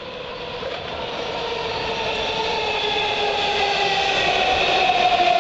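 Washington Metro subway train pulling into the station, growing steadily louder as it nears. It has a whine of several tones over the running noise, and the strongest tones slowly fall in pitch as the train slows.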